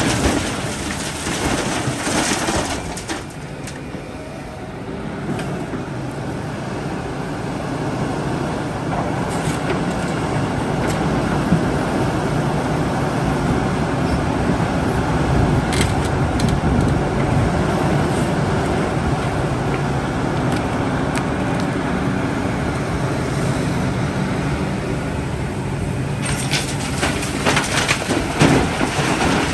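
Diesel engine of heavy earthmoving machinery running steadily as a low rumble, with louder, noisier stretches in the first few seconds and again near the end.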